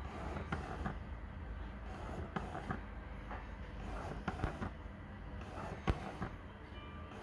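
Canon EF 70-200mm f/2.8L USM lens's repaired ultrasonic focus motor driving the focus back and forth in an autofocus test. It makes short whirring sweeps and irregular clicks, with a sharper click about six seconds in.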